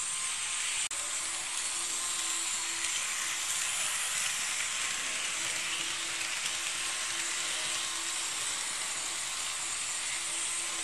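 Model railway train running: a steady whirring hiss from its small electric motor and wheels on the track, with a faint on-and-off hum. The sound briefly cuts out about a second in.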